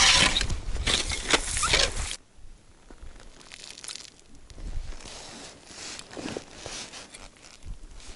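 Hand ice auger grinding and crunching through lake ice, stopping abruptly about two seconds in. Then softer, scattered crunching and scraping of ice chips around the fresh hole.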